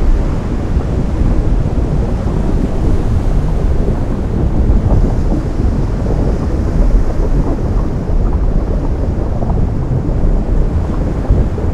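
Ocean surf where the sea meets lava: a loud, continuous deep rumble of waves, heavy in the low end, with no separate events standing out.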